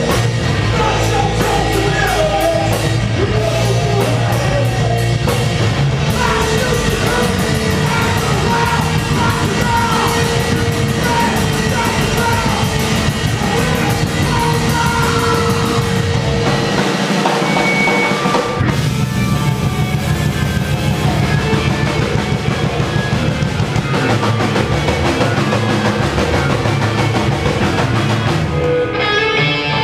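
A live rock band playing loudly, drum kit and guitars together in one continuous wash. A little past halfway the bass and kick drop out for about a second and a half before coming back in.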